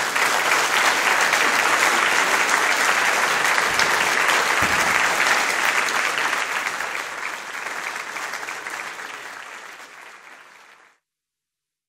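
Audience applauding: many people clapping steadily, the clapping thinning out after about eight seconds and cutting off abruptly near the end.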